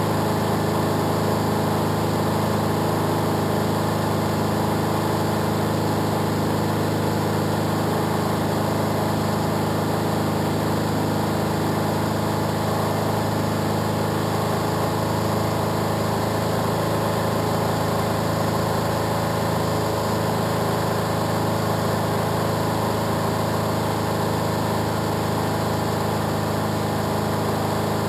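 Engine and propeller of an SD-1 Minisport ultralight aircraft running at a steady drone, heard from inside the small cockpit.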